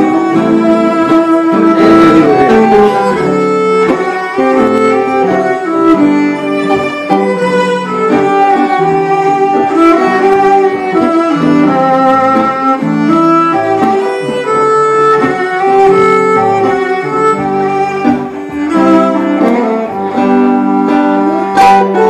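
Instrumental break of a country ballad: a fiddle carries the melody in long, wavering notes over strummed acoustic guitar and electric archtop guitars.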